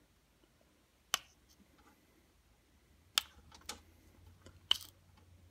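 Four sharp, separate clicks of a rare earth magnet knocking against the steel-cored crankshaft position sensor as it is handled, with faint rustling between.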